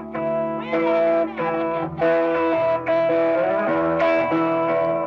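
Electric guitar playing a line of held notes, several of them bent up and down in pitch.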